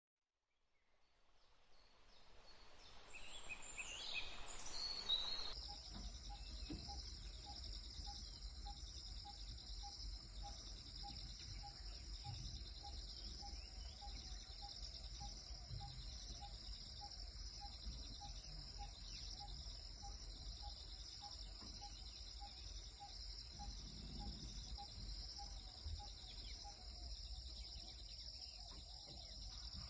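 A swelling whoosh with high gliding tones builds for about five seconds, then cuts off abruptly. It gives way to a steady high drone of forest insects, a short chirp repeating about one and a half times a second, and a low rumble underneath.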